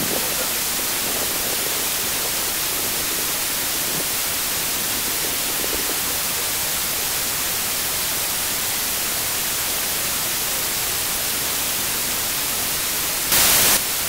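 Steady white-noise static hiss filling the whole range, with a brief louder surge of the hiss about half a second long near the end.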